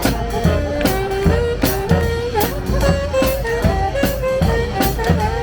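Street brass band playing: horns carrying a melody over a steady drum beat.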